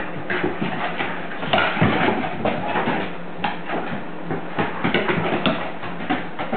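Siberian huskies play-fighting on a wooden floor: paws and claws clatter and scuffle irregularly on the floorboards. There is a busier tussle about two seconds in and another near the middle.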